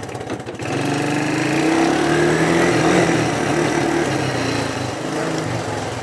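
A Honda three-wheeler's small engine running, its pitch climbing over the first few seconds as it is revved, then easing back down near the end.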